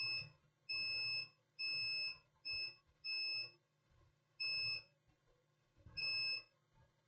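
Digital multimeter beeping in diode/continuity mode as its probes are touched to points on a laptop motherboard: seven short, high-pitched electronic beeps at irregular intervals, one of them noticeably shorter than the rest.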